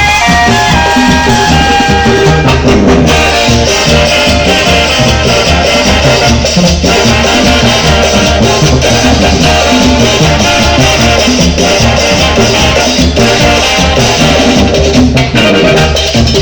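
Loud Latin dance music in the salsa style with a steady beat, played over a party sound system.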